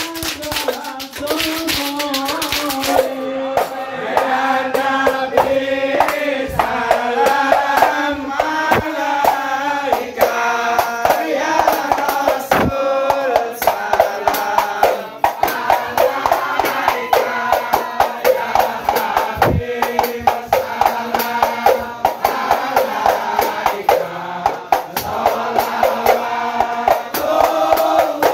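Men's group singing sholawat in unison over terbang frame drums, with dense hand-clapping in the first few seconds. This is ISHARI hadroh music.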